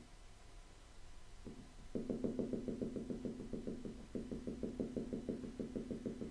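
Rapid tapping on the glass of a Jamboard touchscreen as its on-screen keyboard is typed on: one tap, then two quick runs of taps several a second, with a short break in between.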